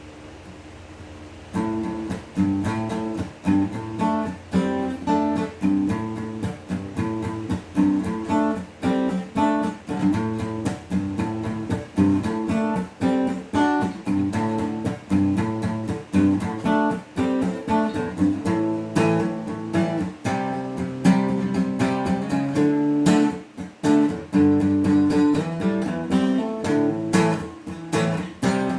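Tribo TR-05 Nelson acoustic guitar played solo, a steady run of plucked notes and chords starting about a second and a half in.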